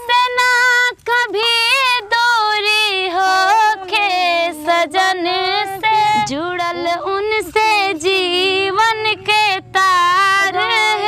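A woman singing a Bhojpuri devotional song in a high voice: a single melodic line with held, wavering notes.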